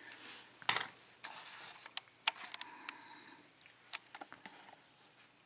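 Light clicks and taps of small metal lock parts being handled on a hard surface. The loudest click comes under a second in, with faint scraping in between.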